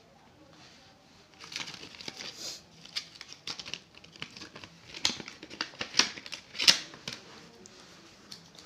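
Clear plastic packet crinkling as it is handled, a run of irregular rustles and crackles, the sharpest coming about five to seven seconds in.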